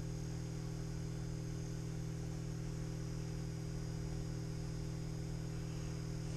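Steady low hum with a faint hiss above it, unchanging throughout.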